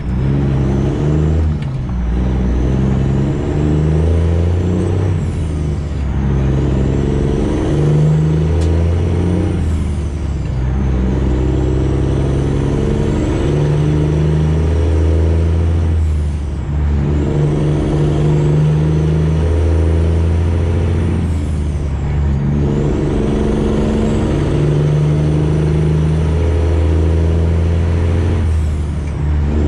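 Straight-piped Freightliner Classic XL semi truck accelerating up through the gears. The diesel's note climbs in each gear and breaks off briefly at roughly six shifts, with a thin high whine rising along with each pull.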